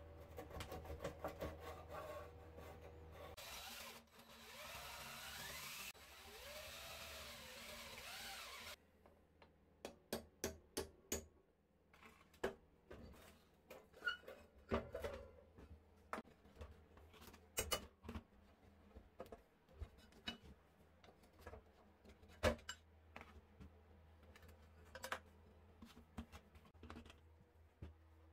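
Pliers and rusty metal parts of an antique Salter spring balance being handled on a workbench as the scale is taken apart: quick clicks at first, then about five seconds of scraping a few seconds in, then scattered separate clicks and knocks.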